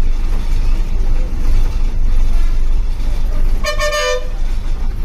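Steady low rumble of a bus's engine and road noise heard from the driver's cabin, with one short vehicle-horn toot about three and a half seconds in.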